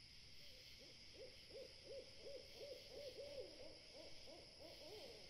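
An owl hooting faintly in a rapid run of short hoots, about three a second, rising slightly in pitch toward the end.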